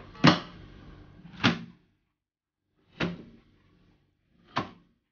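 Four dull thumps, about a second or a second and a half apart, as sketchbooks and a zippered art-supply case are dropped one by one onto a desk.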